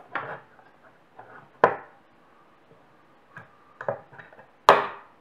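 A precision screwdriver and the metal casing of a Toshiba hard drive clicking and knocking against each other and the wooden desk as the cover screws are worked out. About five sharp knocks, the loudest about a second and a half in and near the end.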